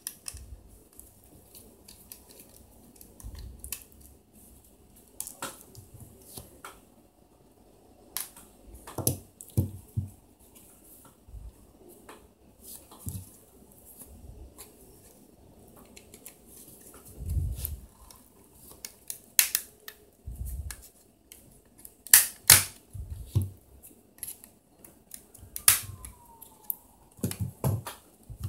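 Handling and tool noise from taking apart an Alcatel One Touch Pixi 3 mobile phone: screws backed out with a small screwdriver, then the plastic housing pried open with a knife blade and fingers. Intermittent clicks, taps and scrapes, with a cluster of sharper clicks about two-thirds of the way in.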